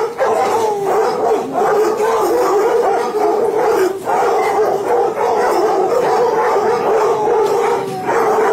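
A large pack of hunting hounds baying and howling together in one continuous chorus of many overlapping voices. It is the noisy excitement of a kennel full of hounds waiting to be fed.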